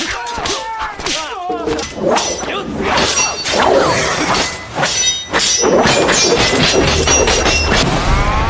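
Film sword-fight sound effects: a rapid series of blade clashes and hits, several with a high metallic ring, after shouts in the first second or so. A low rumble builds near the end.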